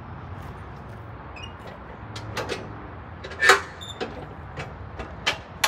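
Metal clanks and knocks from a railroad crossing gate mechanism's housing as its cover is opened and handled. The loudest knock comes about three and a half seconds in, with a short metallic ring, followed by a few lighter knocks. A steady low hum runs underneath.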